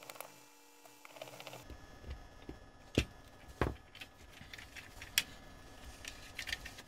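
Small clicks and taps of a plastic video-light casing and tiny screws being handled on a workbench: a handful of sharp, separate clicks, the loudest about three seconds in.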